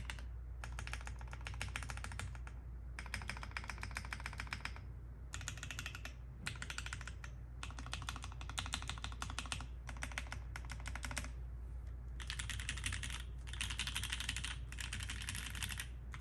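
Typing on an LZ Physix custom mechanical keyboard with lubed and filmed 67g Tangerine switches, a carbon fibre plate and GMK doubleshot ABS keycaps. The keystrokes come in quick bursts of rapid clacks with brief pauses between them, over a steady low hum.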